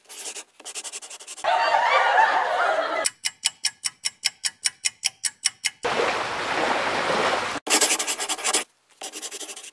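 An edited collage of sound effects that cuts in and out abruptly. It has stuttering bursts, a noisy stretch, and a rapid pulse of about seven beats a second in the middle.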